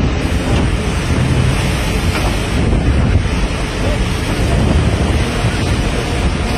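Strong wind buffeting the microphone over the steady rush of water from a navy destroyer's bow wave and wake at sea.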